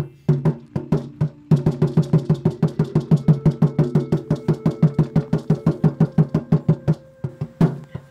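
Music made of fast, evenly spaced struck percussion notes with a pitched, wood-block-like tone. The notes speed up to a steady run of about eight a second from about a second and a half in, then thin out near the end.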